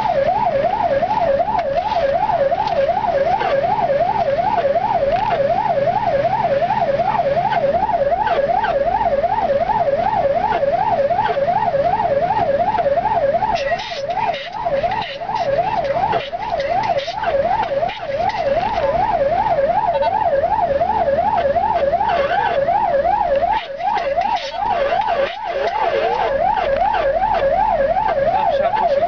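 GVV-2 fire engine's siren wailing in a fast up-and-down yelp, about three sweeps a second, heard from inside the cab over the engine and road noise.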